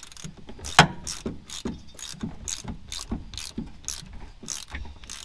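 Hand ratchet wrench clicking in a steady rhythm, about two to three clicks a second, as bolts are run in by hand, with one louder click just under a second in.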